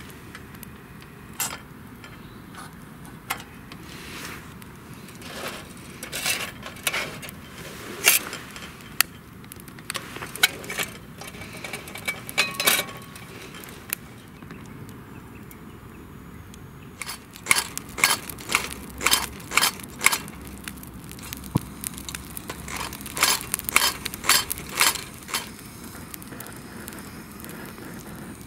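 Wood fire crackling, with scattered sharp snaps and pops that come thicker and faster in the second half.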